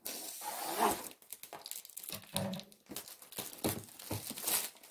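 Clear plastic wrapping being torn and crumpled off a cardboard kit box: irregular crackling and ripping, loudest about a second in and again near the end.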